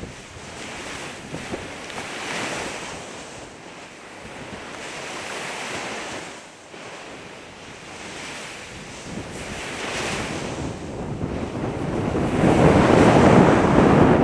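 Ocean surf breaking and washing up a sandy beach, the noise swelling and ebbing every few seconds, with wind buffeting the microphone; loudest near the end.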